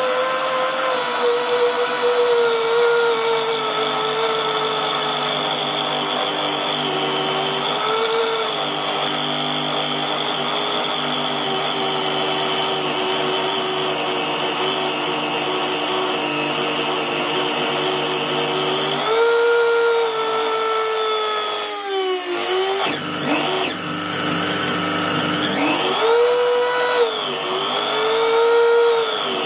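Small brushed universal motor run on excess AC mains voltage, spinning at high speed with a loud whine while its brushes spark at the commutator. About three quarters of the way through, the pitch drops sharply and climbs back, then rises and falls twice near the end.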